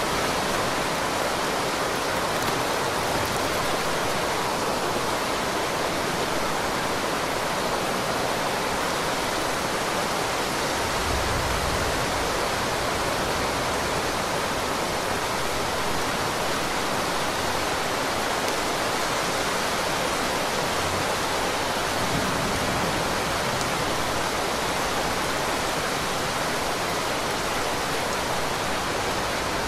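Heavy rain pouring down, a dense, even hiss that holds steady without a break.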